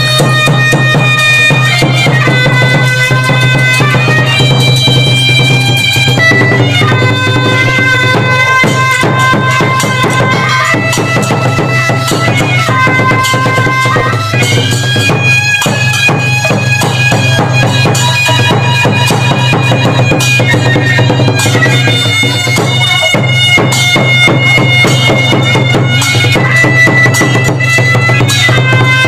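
Traditional Khmer dance music: a reedy oboe-like wind instrument plays a melody of held notes that step up and down every second or two, over a steady low drone and running drum strokes.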